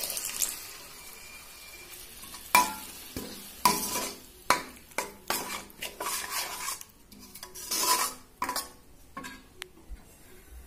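A short hiss as water goes into the hot masala in a stainless steel kadai. From about two and a half seconds in, a steel spoon scrapes and clinks against the pan in irregular strokes as the gravy is stirred.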